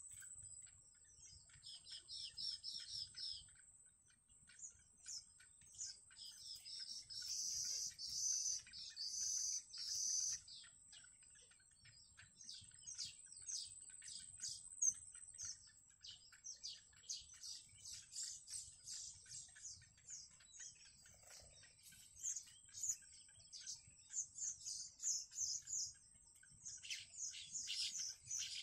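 Yellow bittern chicks in the nest giving quick series of thin, high peeping chirps in repeated bursts, over a faint steady high tone.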